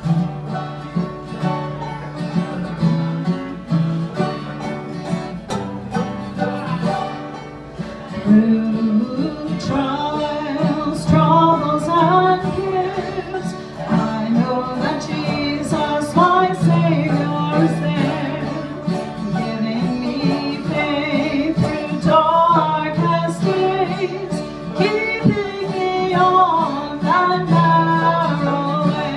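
Live bluegrass band: mandolin, acoustic guitars and a resonator guitar playing a short intro, then a woman and a man singing together over the strings from about eight seconds in.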